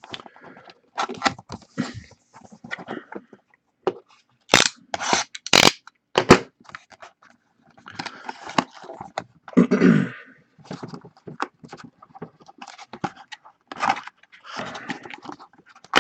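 A cardboard trading-card box being handled and opened by hand: irregular scraping, crackling and tearing of wrap and cardboard, with a few sharp snaps about five to six seconds in.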